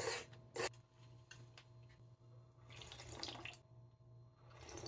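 A person slurping udon noodles, with two quick slurps at the start, then drinking the broth from the pan in longer, noisy slurping pulls about three seconds in and again near the end.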